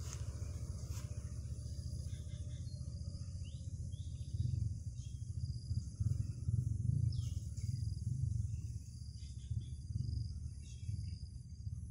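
Steady high chirring of insects, with short rustles of grass and a low rumble that swells about four seconds in and eases near the end.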